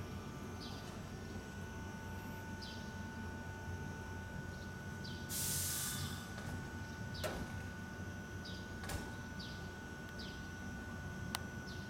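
Quiet railway yard ambience: a steady low hum with two faint steady tones. Short falling bird chirps come every second or two, there are a few sharp clicks, and a short hiss comes about five seconds in.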